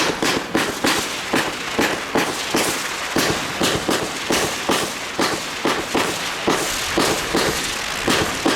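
Argento Volta Multicolor 25-shot F2 firework cake firing comet shots in rapid succession, about three a second, each a sharp launch pop with a brief hiss.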